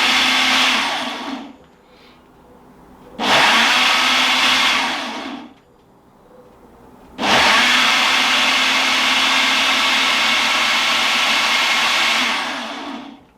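Ninja blender running its smoothie program on a tomato and chilli sauce. The motor runs in pulses: one stops about a second and a half in, a second lasts about two seconds, and then a longer run of about six seconds winds down near the end.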